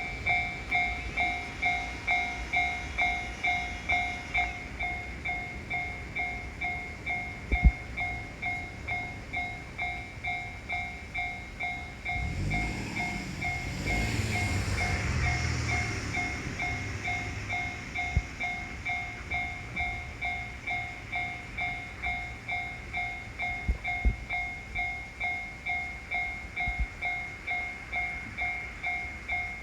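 Japanese railroad crossing warning bell clanging steadily, about two strikes a second. Near the middle a train rumbles past for a few seconds.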